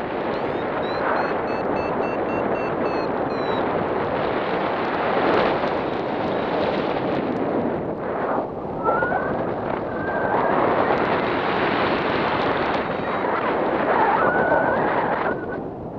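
Wind rushing and buffeting over the microphone of a camera carried in flight under a paraglider, with a few faint, brief high beeping tones at times.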